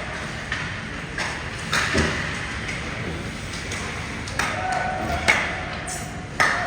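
Spectators' voices and chatter echoing in a large hall, with sharp knocks and thuds every second or so from play on the court or rink.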